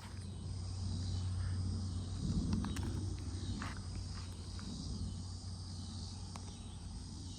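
Insects, crickets by their sound, droning steadily and high-pitched, over a low rumble that swells about two to three seconds in and then eases, with a few faint clicks.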